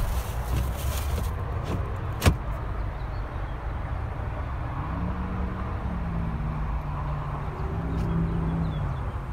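Retractable cargo area cover of a Honda CR-V being pulled out across the cargo area, with one sharp click about two seconds in and a few lighter clicks, over a steady low rumble.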